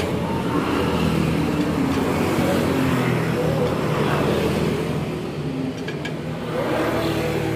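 A motor vehicle's engine running, with the pitch rising and falling.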